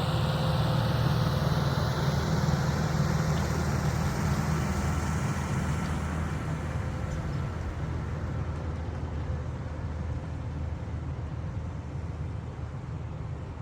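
Farm tractor engine running steadily under load, growing gradually fainter as it draws away.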